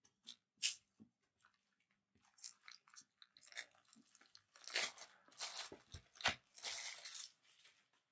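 Wrapping being torn and crinkled as a new oracle card deck is unwrapped by hand: irregular crackling and rustling, sparse at first and thicker and louder in the second half.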